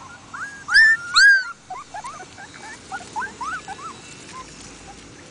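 Two-week-old Siberian husky puppies whimpering and squealing: many short, high cries that rise and fall, with two louder squeals about a second in, then softer whimpers.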